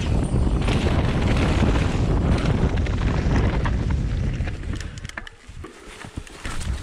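Wind buffeting a handlebar-mounted GoPro and mountain-bike tyres rolling over a dirt and gravel trail. About five seconds in the rush drops away, leaving scattered short clicks and ticks.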